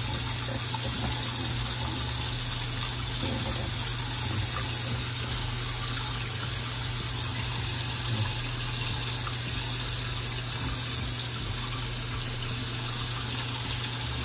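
Tap water running steadily into a sink, an even hiss that does not change, with a low steady hum underneath.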